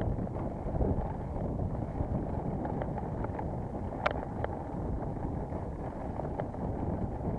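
Steady rumbling wind noise on the microphone, with scattered light clicks and ticks; the sharpest click comes about four seconds in.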